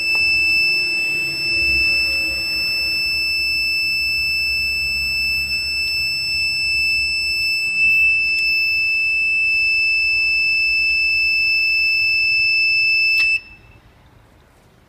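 Piezo buzzer on a homemade resistance-monitoring circuit board sounding its alarm: one steady high-pitched tone that cuts off suddenly about 13 seconds in.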